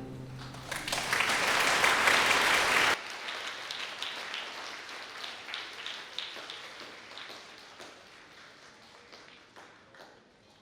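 Audience applauding. The clapping swells about a second in, drops off sharply around three seconds, then thins to scattered claps that die away.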